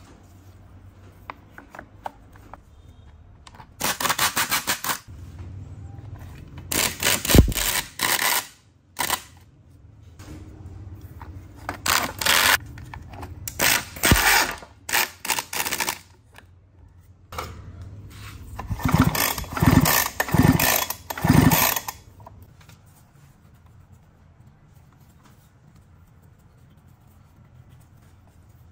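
A power tool run in about six short bursts, each a fast rattle, with a low hum between them; it stops a little over twenty seconds in.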